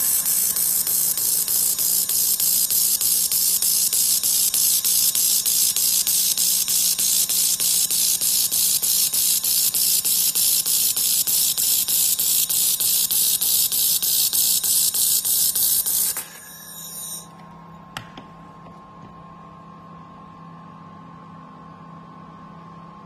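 Handheld fiber laser welding gun welding a sheet-metal corner joint: a loud, steady hiss with a fast, even pulsing that cuts off about 16 seconds in. After it, only a low, steady machine hum with a couple of faint clicks.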